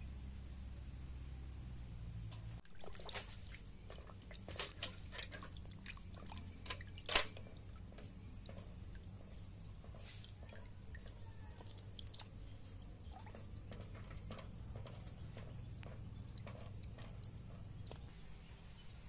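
Hands washing pieces of cut rohu fish in a metal bucket of water: light splashing and sloshing, with a few louder splashes in the first half, the loudest about seven seconds in.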